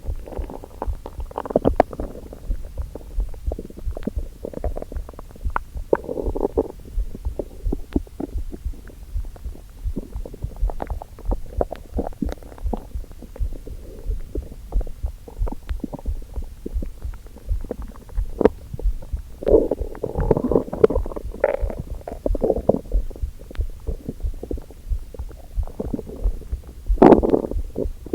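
Human stomach rumbling and gurgling on an empty stomach from hunger: irregular bursts of gurgles, a longer run of them about two-thirds of the way in and a loud one near the end.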